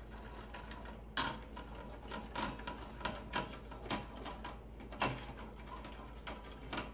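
A kitchen utensil knocking and scraping against a stainless steel pot of onion and wine sauce, as the onions are worked into the sauce to thicken it. There are irregular knocks, the sharpest about a second in and another about five seconds in, with lighter ones between.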